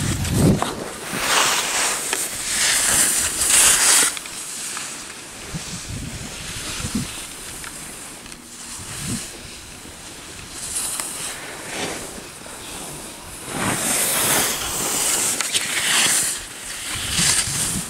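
Skis hissing and scraping over packed snow, with wind on the microphone, coming in surges as the skier turns: loudest in the first few seconds and again near the end, quieter in between.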